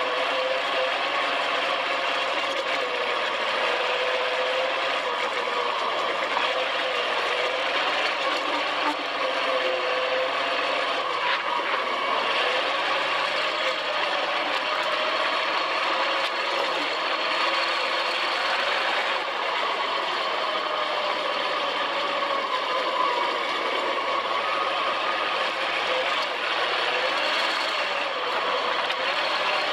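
Sand rail dune buggy's engine running steadily as the buggy drives across and up the dunes, its note drifting slightly up and down with the throttle.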